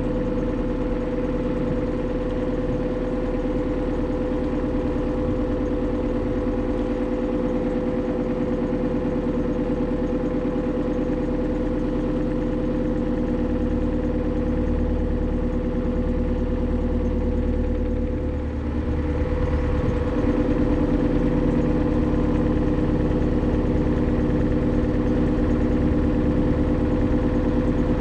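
Narrowboat's diesel engine running steadily under way, with a steady hum and a stack of even engine notes; the low engine note shifts and grows a little louder about two-thirds of the way through.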